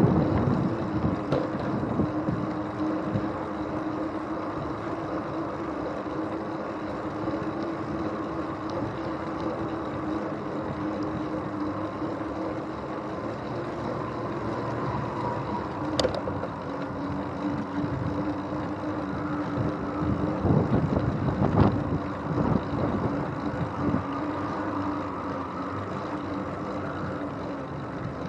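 Bicycle riding along a path, recorded from a handlebar-mounted camera: continuous rolling rumble with wind on the microphone and a steady hum. A sharp tick comes about halfway through, and a few knocks from bumps follow a little later.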